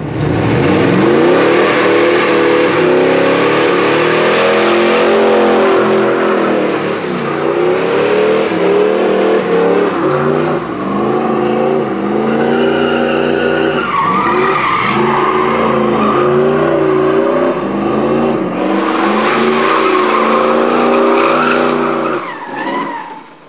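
Chevrolet Monte Carlo SS V8 held at high revs while doing donuts, its rear tyres spinning and squealing on the pavement. The revs climb at the start, rise and dip repeatedly, then fall away near the end.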